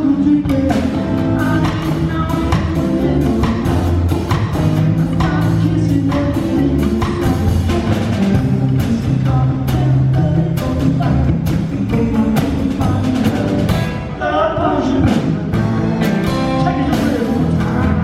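Live rock band playing, with a drum kit keeping a steady beat under bass and pitched melody parts, and a singer's voice. The music is loud and continuous, thinning briefly about fourteen seconds in.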